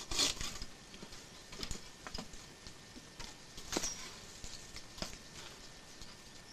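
Acacia branches being cut in the tree: a couple of saw strokes at the very start, then about half a dozen faint, scattered knocks and cracks of wood.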